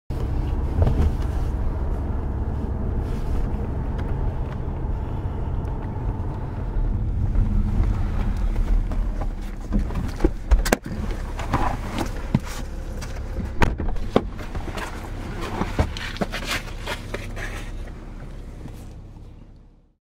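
Car cabin ambience: the steady low rumble of a car heard from inside, with scattered sharp clicks and knocks in the second half, fading out near the end.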